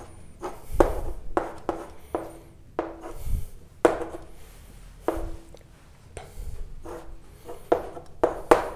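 Writing by hand: a run of short, irregular scratching strokes.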